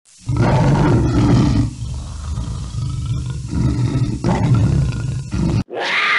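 Big cat roar sound effect: a long, rough, low roar and growl that breaks off about five and a half seconds in. A second roar follows at once and falls in pitch.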